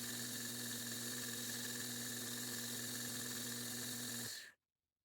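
Electric grinder running steadily as the knife's edge is sharpened: a constant motor hum with a high grinding hiss, which stops abruptly about four and a half seconds in.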